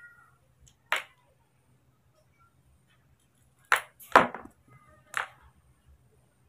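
Ice cubes wrapped in a cloth compress clicking against each other as the compress is handled: four short, sharp clicks, one about a second in, two close together near the middle and one more a second later.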